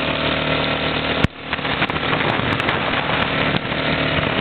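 ATV (quad bike) engine running steadily under a heavy rushing hiss. About a second in, a sharp click is followed by a brief drop in the sound.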